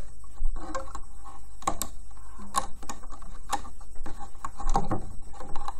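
Irregular small clicks and taps of fingers working rubber loom bands onto the plastic pins of a loom.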